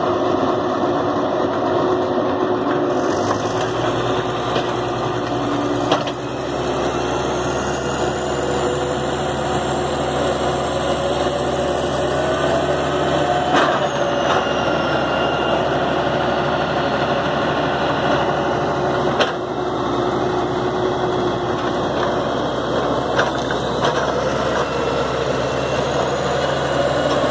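Diesel engines of a Cat D6D crawler dozer and a JCB JS130 hydraulic excavator running hard together as the excavator helps the mired dozer crawl out of deep mud. A whine rises and falls in pitch, and the dozer's steel tracks give a few sharp clanks.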